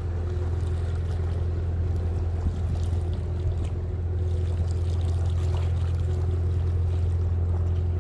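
Engine running at a steady low hum, heard from on board, with a faint steady higher tone above it.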